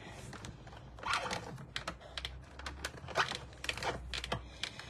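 Hand-cranked Stampin' Up! embossing machine being cranked, an embossing folder with cardstock squeezing through stiff, tight rollers. It gives irregular sharp clicks, with a low rumble through the middle stretch.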